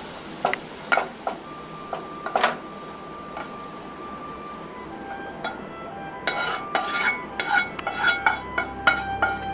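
Spatula scraping and knocking sautéed vegetables out of a hot pan into an aluminium pressure cooker, over a faint sizzle. About halfway through the sizzle fades and a quick run of metallic clinks and knocks with a short ring follows.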